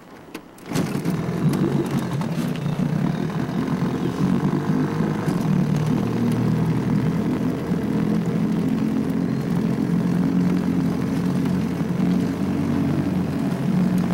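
A Johnson 9.5 hp two-stroke outboard motor starts up about a second in and then runs steadily.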